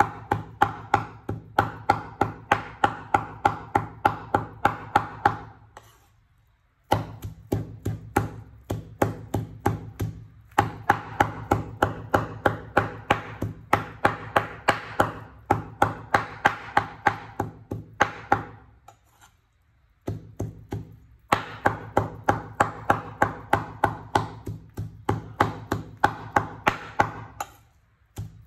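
A knife chopping and mincing raw pork on a wooden cutting board, in steady strikes about three a second. The chopping stops briefly twice.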